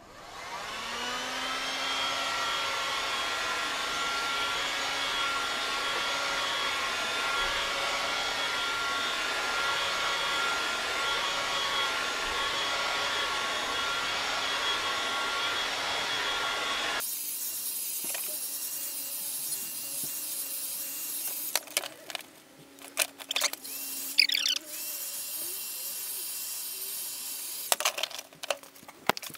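Electric heat gun switched on: its fan spins up and runs with a steady blowing whine as it heats a PVC foamboard panel to soften it, then cuts off suddenly a little past halfway. After that come scattered knocks and handling sounds as the warm panel is bent by hand.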